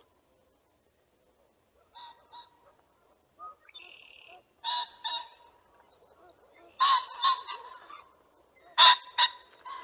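Pheasant calling: several short groups of harsh, pitched calls, often two notes close together, the loudest in the second half.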